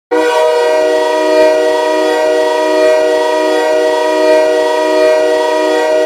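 Airchime K5L five-chime locomotive air horn used as an ice-hockey goal horn, sounding one long steady blast of several notes at once that cuts off sharply near the end: the signal that the home team has scored.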